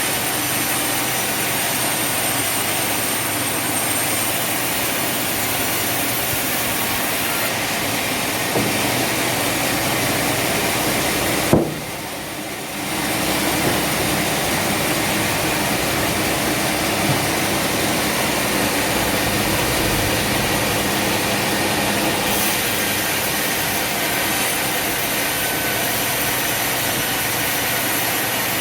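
Sawmill machinery running with a loud, steady noise. About twelve seconds in there is a single sharp knock, after which the noise briefly drops before building back up.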